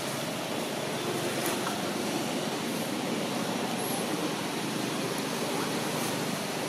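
Steady rushing outdoor background noise with a few faint ticks.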